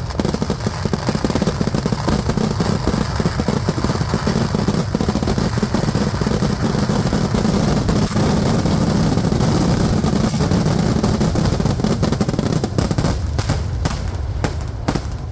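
Kerala temple-festival fireworks (vedikkettu): firecrackers going off in a rapid, dense barrage that merges into a continuous rumble, thinning to separate bangs near the end and then stopping.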